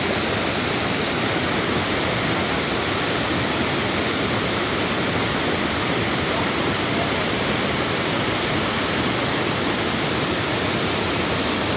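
Cold lahar flood, a fast muddy volcanic mudflow, rushing past in a steady, unbroken wash of water noise.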